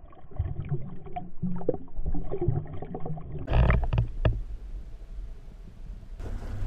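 Muffled underwater sound of lake water sloshing and knocking as a hand releases a smallmouth bass, with a low steady hum beneath. About three and a half seconds in there is a sharper, louder burst of clicks and splashing.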